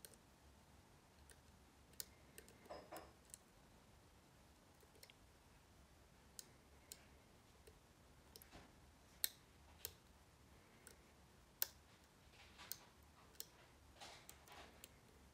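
Faint, irregular metallic clicks and ticks from a dimple pick working the pins of an Avocet ABS magnetic dimple lock under light tension. There are about a dozen over several seconds, with two sharper clicks in the second half.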